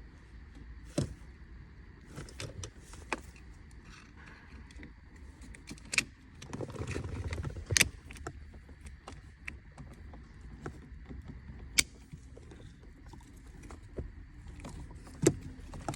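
Wires and plastic dash parts being handled and pushed into place: scattered sharp clicks and knocks, with a longer scraping rustle about six to eight seconds in.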